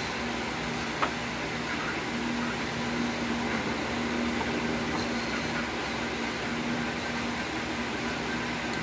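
Steady background machine hum and hiss, with one sharp click about a second in from small plastic parts being handled.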